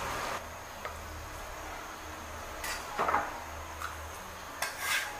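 Soft scrapes and light knocks as cut tofu is pushed across a wooden cutting board and set onto a ceramic plate: a few brief handling sounds, the clearest about halfway through and just before the end, over a low steady hum.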